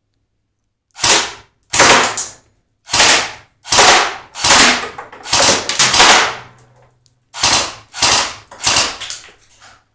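Airsoft gun fired in single shots, about ten in a row at an uneven pace, each a sharp crack with a short fading tail, with a brief pause after about six seconds.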